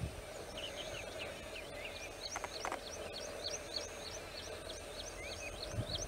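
Rain quail calling: a long series of short, sharp, high-pitched notes at about three a second, over a faint steady background drone.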